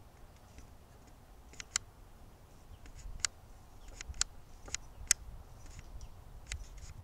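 About ten sharp, short clicks at irregular intervals over a faint low rumble.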